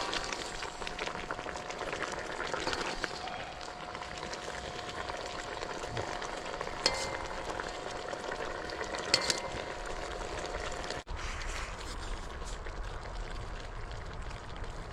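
Stew simmering and bubbling in a pot, with two sharp metallic clinks of a ladle against the pot about seven and nine seconds in.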